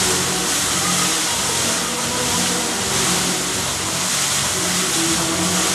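Fountain water jets spraying and falling back into the basin in a steady rushing hiss, with a low hum underneath.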